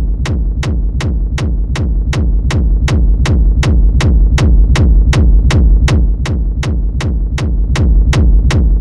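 Electronic hard techno kick drum looping on its own in a steady pulse, about two and a half hits a second. Each hit is a sharp click over a deep low boom, played with the Kick Energy rack switched on.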